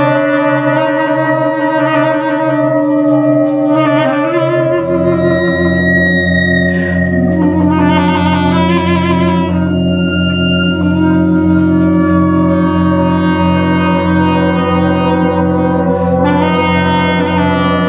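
Improvised music for bass clarinet, theremin and laptop electronics: long held, overlapping notes, some of them wavering. A steady low drone comes in about five seconds in.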